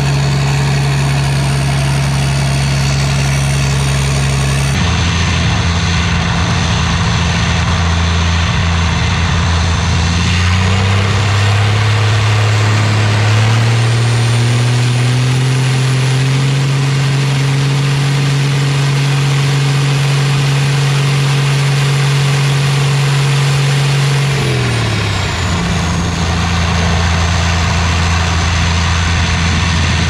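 International Harvester 1420 combine's straight-piped diesel engine with an aftermarket turbo, running shortly after a cold start. It idles, is revved up about ten seconds in and held at the higher speed, then drops back to idle about five seconds before the end. A high whine rises with the revs and falls away as the engine slows.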